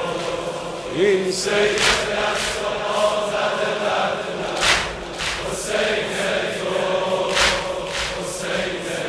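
A large crowd of male mourners chanting together in unison, a dense mass of voices with a sharp accent about every three seconds.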